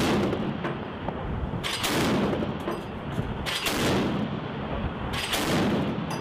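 Ship-mounted Mk 38 25 mm chain gun (M242 Bushmaster) firing: a heavy report about every two seconds, each followed by a fading echo.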